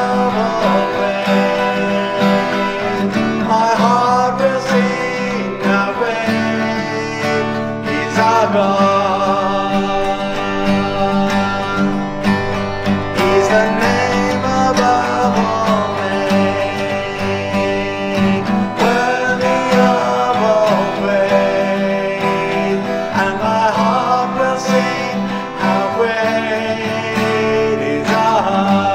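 A man singing a song while strumming chords on an Epiphone acoustic guitar.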